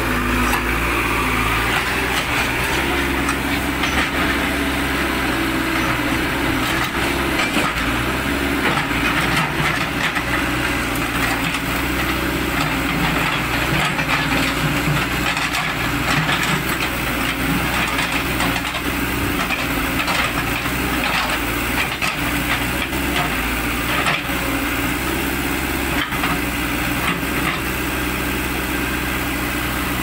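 Cat 424 backhoe loader's diesel engine running steadily while the machine shoves through a pile of cut branches, the wood cracking and clattering in many short snaps.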